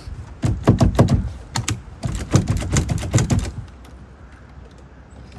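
A rapid run of sharp knocks and clicks, hard objects clattering, lasting about three seconds and then stopping.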